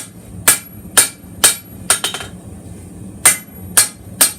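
Hand hammer blows on a hot steel chef's knife blade over an anvil, about two a second in two runs with a pause of about a second between them. Each blow rings briefly.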